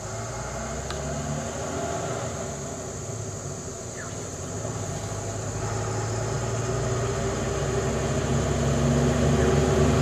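Diesel engine of an Ashok Leyland 1212 truck running at low speed as the truck approaches, a low drone that grows steadily louder.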